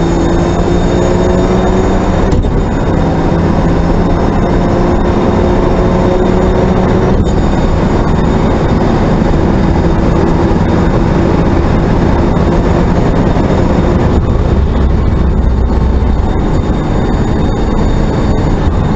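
Racing car's engine heard from inside the cockpit under full throttle, pitch climbing through each gear with quick upshifts about 2.5 and 7 seconds in. Then a long high-speed run with road and wind noise, until the engine note drops about two-thirds of the way through as the car comes off the throttle.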